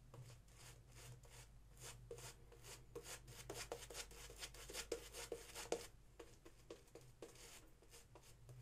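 Parker semi-slant double-edge safety razor shaving a lathered scalp: a faint series of short strokes, about three a second and loudest in the middle, as the blade cuts the stubble.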